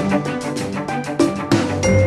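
Closing theme music with a quick, busy percussive beat and sustained pitched notes.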